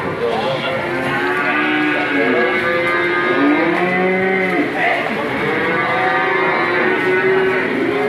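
Several cattle mooing, their long calls bending up and down in pitch and overlapping one another with hardly a break.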